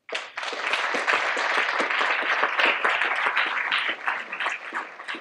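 Audience applauding: a dense round of clapping that starts all at once and thins into scattered claps near the end.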